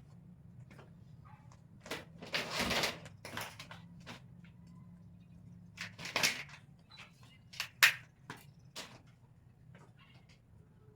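Shoe rack parts being handled and fitted together: scattered clicks and knocks, with two longer scraping rustles around two and six seconds in, and one sharp loud click near eight seconds.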